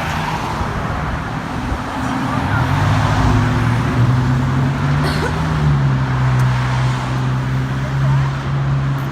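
Traffic on a busy street, with cars passing. About two and a half seconds in, a vehicle engine's low, steady hum comes in and holds.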